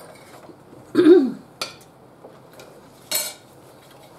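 Eating at a table with crisp corn taco shells: a short hummed voice sound about a second in, a light click, and a brief crisp crunch about three seconds in.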